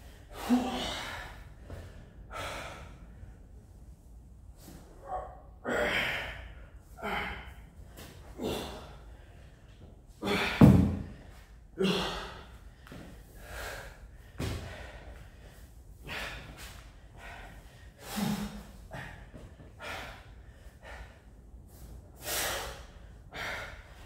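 A person breathing hard during a workout, with sharp, forceful exhales every second or two. A single heavy thud comes about ten seconds in and is the loudest sound.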